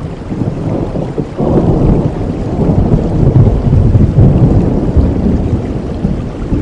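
Steady rain with a low rumble of thunder that swells about a second and a half in and slowly eases toward the end.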